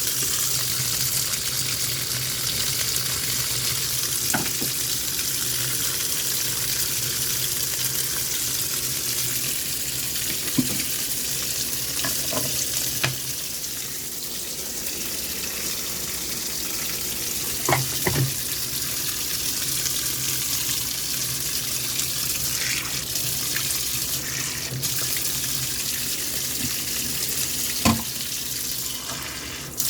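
Washing machine filling with water: a steady rush of water running into the drum, with a low steady hum and a few scattered clicks.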